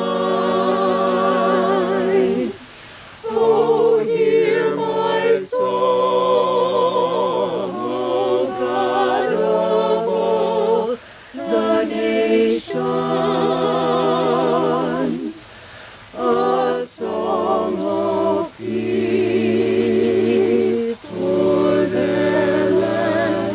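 Small a cappella vocal ensemble of mixed men's and women's voices singing in harmony, holding chords in phrases a few seconds long with short breaks for breath between them.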